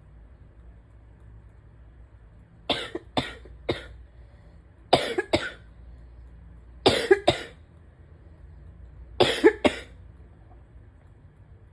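A person coughing in four short fits of two or three sharp coughs each, during an allergy flare that has also set off asthma.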